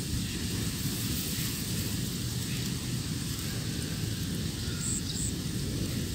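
Steady low rumbling noise of wind buffeting the microphone over faint outdoor hiss.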